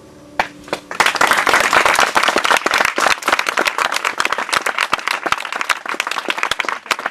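Audience applause at the end of a Celtic harp piece: the last harp notes die away under a few first claps, then steady clapping sets in about a second in.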